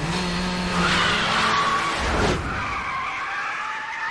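Two race cars, a Mazda RX-7 FC and a Mitsubishi Lancer Evolution III, drifting hard through a corner: engines running at high revs with loud tyre squeal and skidding. A brief falling whoosh comes about two seconds in, and steady high squeal tones follow.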